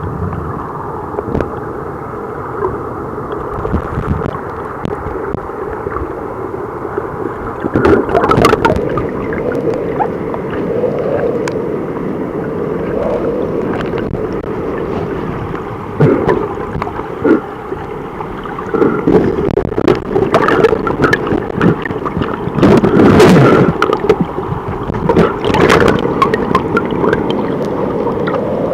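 Muffled rush and gurgle of river water heard through a waterproof camera in the river, steady and dull-sounding, broken by knocks and splashes. The loudest surge comes a little over twenty seconds in.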